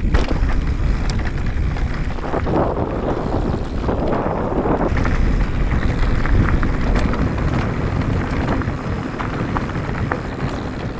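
Wind buffeting the microphone and knobby tyres rumbling over a rough dirt trail as a YT Decoy MX mountain bike descends, with scattered sharp clicks and rattles from the bike over the bumps.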